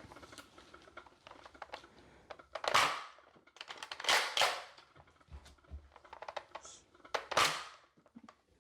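Nerf foam-dart blaster being handled and fired: light plastic clicks throughout and three short puffs of air, the first about three seconds in and the last near the end.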